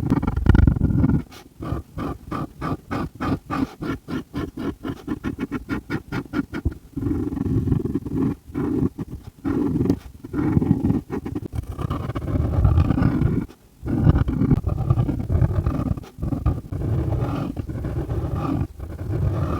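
Markers scribbling on paper close to the microphone: a fast run of short back-and-forth strokes, about six a second, from about a second and a half in until about seven seconds in, then longer, slower strokes with short pauses between them.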